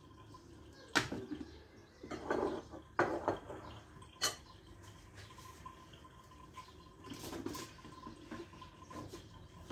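A few separate knocks and clicks of handling a blender jar: its orange plastic lid being fitted onto the glass jar packed with orange segments, with softer rubbing and shuffling in between. The blender motor is not running.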